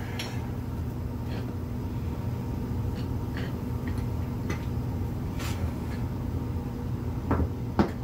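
A BAJA No-Pinch tire-changing tool working a dirt-bike tire bead over the rim: scattered light metal clicks and knocks as the tool is swung around the wheel hub, with two sharper knocks near the end. A steady low hum runs underneath.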